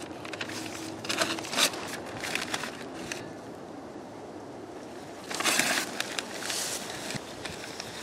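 Sharp clicks and crackles from a stick lighter being worked and paper and plastic being handled at an open microwave, followed by two short bursts of rustling hiss near the end.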